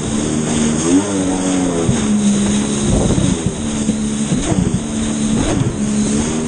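Yamaha XLT1200 WaveRunner's three-cylinder two-stroke engine running at speed, its revs surging up and dropping back about four times as it rides over the chop, over wind and water noise.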